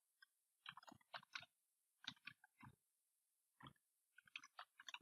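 Faint computer keyboard typing: short clusters of quick key clicks, one group about a second in, another around two seconds, and a run near the end.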